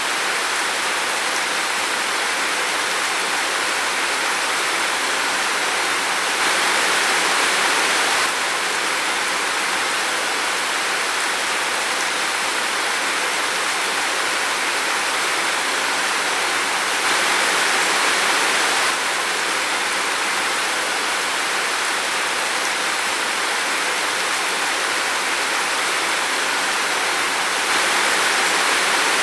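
Steady rain falling in a forest, an even hiss that swells slightly three times, about every ten seconds.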